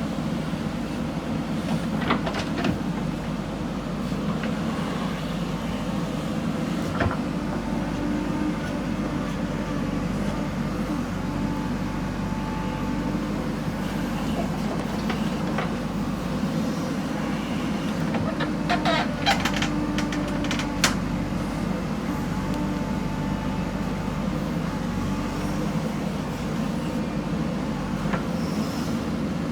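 Backhoe loader's diesel engine running steadily under work, with a few sharp metallic clanks from the machine, several close together about two-thirds of the way through.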